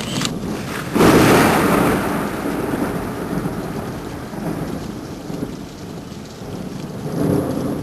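A thunderclap breaks about a second in and rolls on, fading slowly over several seconds, over the steady hiss of rain.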